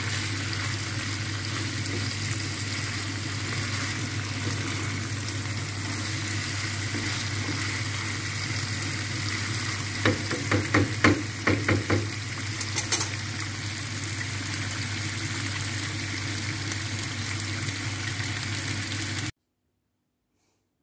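Food sizzling in a frying pan with a steady hiss and a low hum underneath. A quick run of sharp knocks comes about halfway through, as a utensil stirs against the pan. The sizzle cuts off suddenly a second or so before the end.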